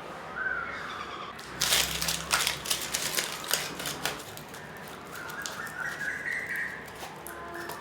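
Small birds chirping in short, stepped calls. A flurry of sharp crackling clicks runs from about one and a half to four and a half seconds in.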